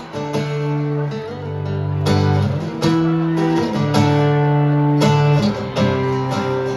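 Live band playing a song's intro on amplified guitar: strummed chords ring out, with a fresh strum about every second and a half.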